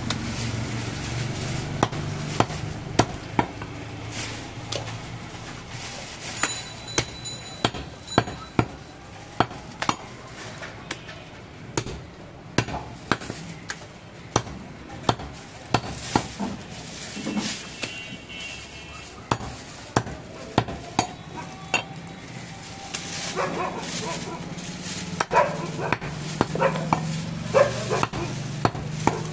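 Cleaver chopping goat meat and bone on a wooden log chopping block: repeated sharp knocks at an uneven pace.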